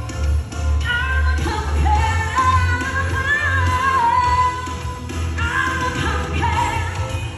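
Pop song with a singing voice over a pulsing bass beat.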